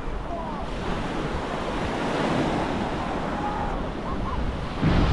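Ocean surf washing onto the beach with wind buffeting the microphone, a steady rushing noise with a deep rumble that swells louder near the end.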